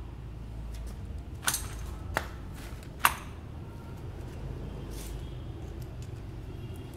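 Sharp clicks and clinks of a plastic scooter cover and a screwdriver being handled and set down: three louder ones between about one and a half and three seconds in, the last the loudest, with a few fainter ticks, over a steady low rumble.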